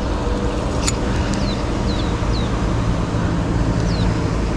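Steady low mechanical drone, like a motor running or road traffic. There is a sharp click about a second in, and a few short, high, falling chirps.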